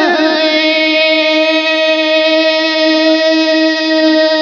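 Red Dao (Dao Đỏ) folk singing: a single voice ends a few quick pitch ornaments just after the start, then holds one long, steady note.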